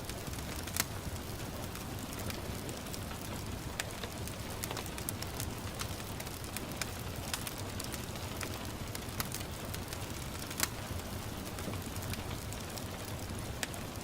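Wood fire crackling with scattered sharp pops, two louder ones about a second in and after about ten seconds, over a steady patter of light rain.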